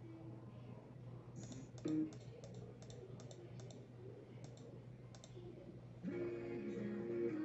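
Typing on a computer keyboard: a run of about a dozen irregular key clicks, with one louder knock about two seconds in, over a faint steady hum. Background music comes back in near the end.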